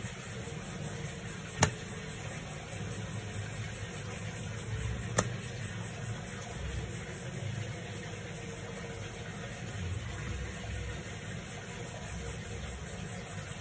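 Fingers scraping and digging through packed soil to uncover a turtle nest, under a steady hiss and uneven low rumble, with two sharp clicks about a second and a half and five seconds in.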